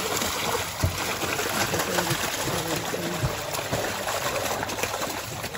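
Water and live trout pouring and splashing out of a tipped plastic tub into a hole in the ice, a steady rushing pour with a couple of dull knocks.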